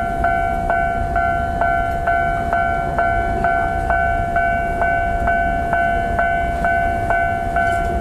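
Japanese railway level-crossing warning bell ringing, an electronic two-tone clang struck about twice a second, sounding while the barriers are down for approaching trains.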